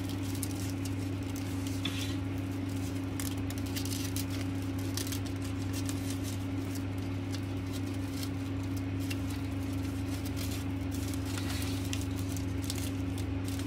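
Satin ribbon rustling and crinkling softly as it is looped and folded by hand, with light ticks, over a steady low hum.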